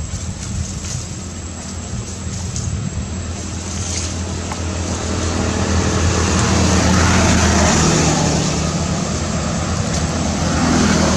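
A motor vehicle's engine hums low and steadily, growing louder from about halfway through.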